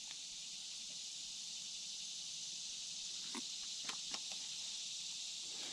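Steady high-pitched chorus of insects, with a few faint clicks a little over three seconds in as the baitcasting reel is handled.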